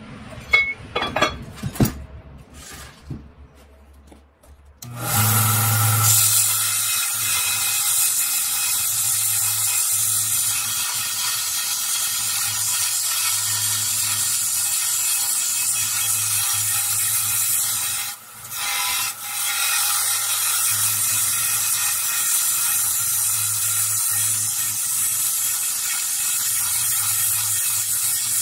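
Small bench belt grinder grinding the end of a steel rod down to a nub, throwing sparks; it runs steadily from about five seconds in, after a few clinks of metal being handled. The grinding breaks off briefly about two-thirds of the way through and then resumes.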